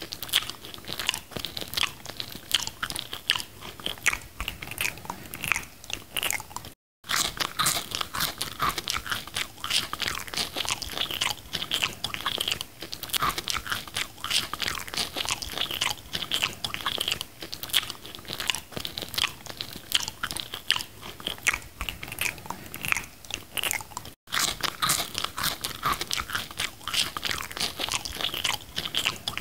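A person biting and chewing a McDonald's burger: a dense, continuous run of small mouth clicks and crunches, cut twice by a brief dropout to silence.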